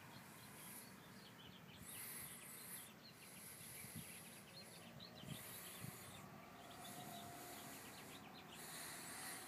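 Near silence: faint outdoor background hiss, swelling and fading, with faint high chirps.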